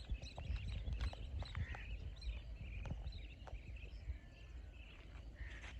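Birds chirping, short scattered calls over a steady low rumble, with a few faint clicks.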